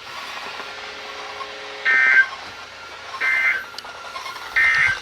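NOAA Weather Radio broadcast through a receiver's speaker: three short bursts of warbling EAS digital data tones, about 1.3 s apart, the End of Message code that closes the severe thunderstorm warning.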